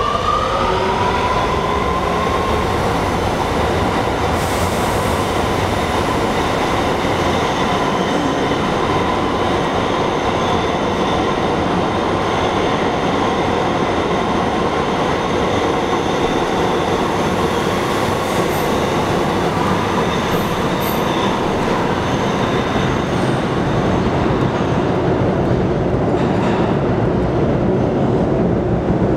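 Kawasaki R211A subway train pulling out of the station and accelerating: its traction motors whine, rising in pitch until about a second in, then the cars rumble steadily and loudly along the rails as the train runs out.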